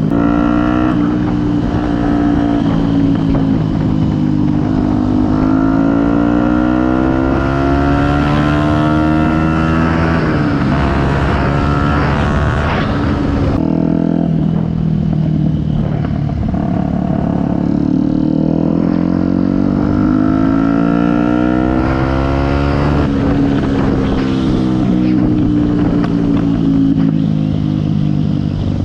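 Yamaha WR 125X motorcycle's single-cylinder four-stroke engine running through a BlackWidow aftermarket exhaust, its pitch rising and falling several times as the revs climb and drop. The sound changes abruptly about halfway through.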